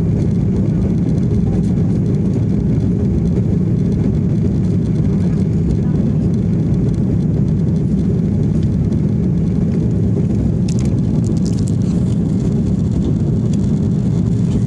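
Jet airliner cabin noise in the climb after takeoff, heard inside the cabin: the engines and rushing air make a steady low drone. A few faint ticks come about eleven seconds in.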